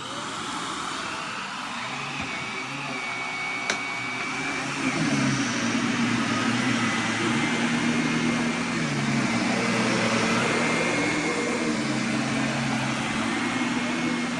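Upright vacuum cleaner running over the floor, pulling up matted hair and fur: a steady whir with a thin high motor whine, growing louder about five seconds in. There is a single sharp click a little before that.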